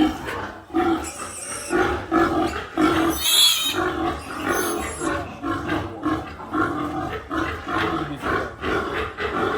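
Weaner piglet squealing and grunting in a rapid run of short calls, with a sharper, higher squeal about three seconds in, typical of a piglet protesting at being handled.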